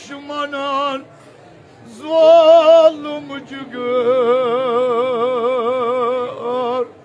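A man's voice chanting a Kashmiri mourning elegy (noha) in long held notes with a slow, wavering vibrato. The phrases break off briefly about a second in, and the longest held note, in the second half, lasts about two and a half seconds.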